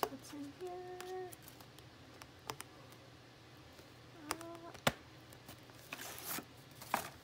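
A woman humming two short steady notes, one about a second in and another just after four seconds, while a stack of greeting cards and envelopes is handled: paper rustling and light taps of card, the sharpest tap near five seconds.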